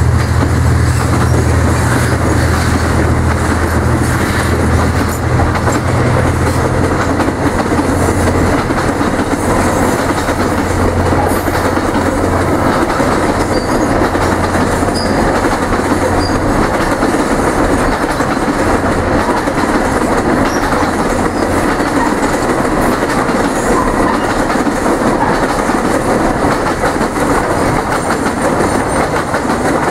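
Loaded freight train of container flatcars and cement hopper wagons rolling steadily past close by. A low drone, the diesel locomotives at the head of the train, fades away over the first dozen or so seconds, leaving the wagons' wheel and rail noise.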